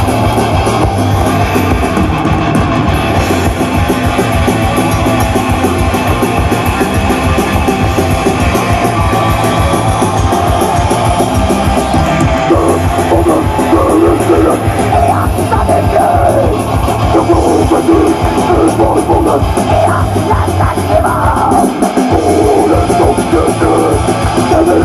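Heavy metal band playing live and loud, with distorted electric guitars and drums.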